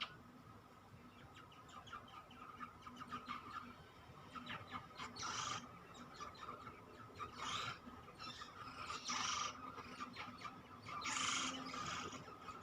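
Grey shrike-thrush nestlings in the nest: about four short, noisy, hissy bursts a couple of seconds apart, with fainter scratchy ticks between them.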